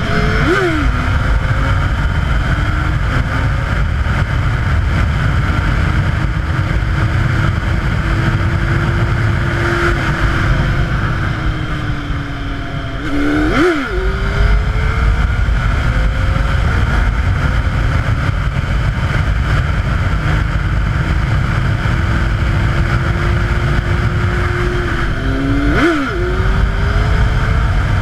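Honda CBR929RR Fireblade inline-four engine pulling hard, its revs climbing slowly under load, with a sharp dip and recovery in revs three times, just after the start, about halfway and near the end, as gears are changed. Heavy wind rush on the helmet-mounted microphone runs underneath throughout.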